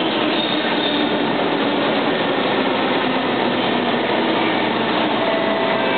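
Steady noise of a stationary SMRT C151 metro train standing at the platform, held there after a failed first departure.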